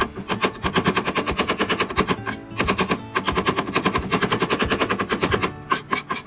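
Kitchen knife chopping rapidly on a plastic cutting board, mincing pitted umeboshi pickled plums into a coarse paste: a fast, steady run of knife strikes with a brief pause a little over two seconds in.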